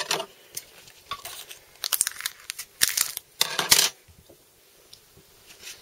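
Foil wrapper of a Pokémon card booster pack crinkling and rustling in the hands, in several short bursts over the first four seconds, then quieter.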